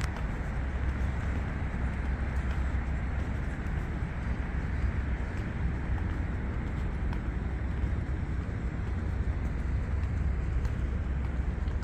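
Steady city ambience at night: a continuous low rumble of distant engines with a soft hiss over it, and no distinct events.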